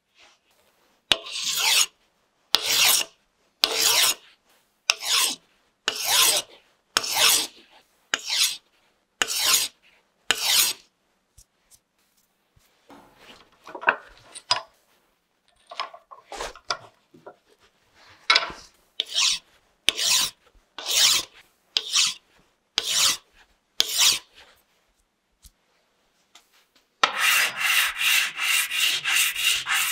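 Rasping hand strokes on a small piece clamped in a bench vise: about nine even strokes, one a second, then fainter and uneven ones. Near the end comes quick back-and-forth scrubbing of a small piece on a strip of sandpaper, about five strokes a second.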